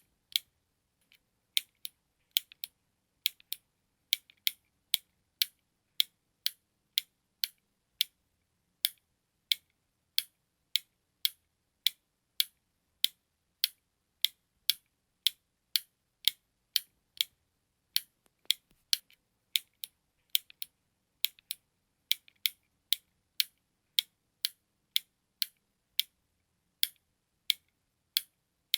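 A button clicking over and over, about two sharp, high clicks a second at slightly uneven spacing, with a few brief pauses.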